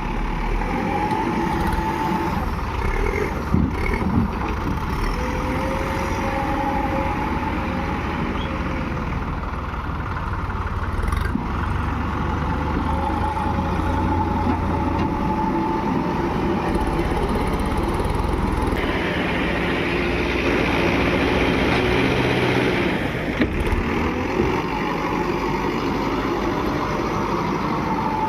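Heavy diesel machine engine running steadily, its tone gliding up and down at times, with a harsher, brighter stretch for a few seconds past the middle.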